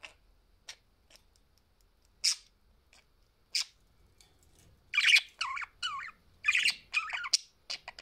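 Budgerigars in a cage: a few faint ticks as a bird nibbles at the greens, two short harsh squawks, then a run of chattering, squawky budgie calls over the last three seconds.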